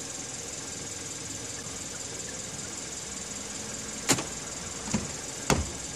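Kia K7 (Cadenza) sitting with its engine running, a steady hum, then three sharp clicks in the last two seconds.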